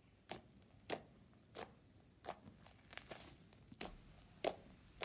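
Slime being squished and poked by hand, giving a short sharp click or pop about every two-thirds of a second, eight or so in all.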